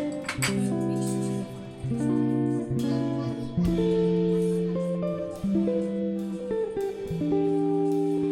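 Background music: plucked guitar notes played in a slow, steady melody.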